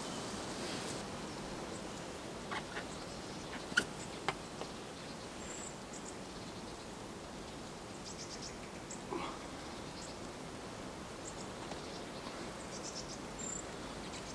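Forest ambience: a steady soft hiss with faint, short high bird chirps now and then. A few sharp taps stand out about four seconds in.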